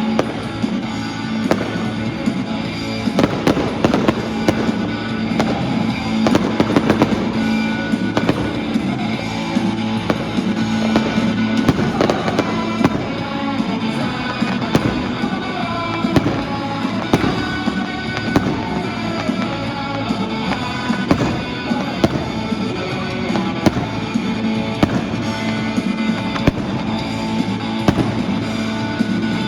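Fireworks going off: many bangs and crackles, some in quick clusters, over music with steady held notes.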